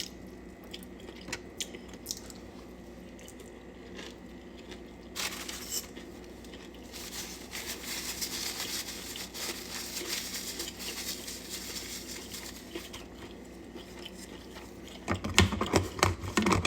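Someone chewing and biting into chicken wings, with scattered small clicks and crinkling. A run of louder clicks and knocks comes near the end.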